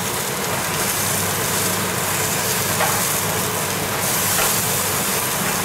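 Veal chop sizzling on the hot wire grate of a Severin PG 8545 electric steak grill while metal tongs turn it, with a couple of light clicks of the tongs on the grate, over a steady hum.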